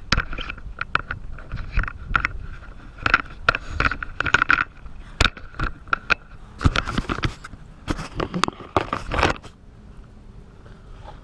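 Irregular scrapes, rubs and knocks of close handling noise: a cargo strap and plastic wrap brushing near the microphone. It goes quieter in the last second or so.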